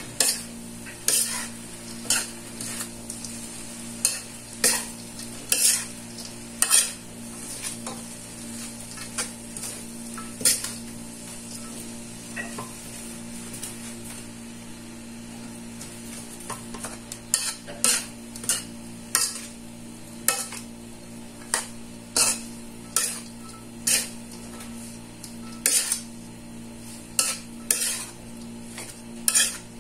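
A utensil stirring and scraping food in a frying pan, in short sharp strokes about once a second, pausing for several seconds around the middle, over a steady low hum.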